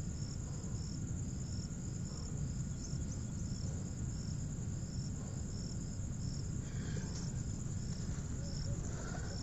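Insect chirping, cricket-like: short high-pitched chirps repeating about twice a second over a steady high trill, above a low outdoor rumble.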